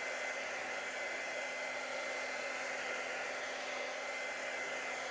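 Hand-held hair dryer blowing steadily with a thin high whine in its rush of air, drying wet acrylic paint.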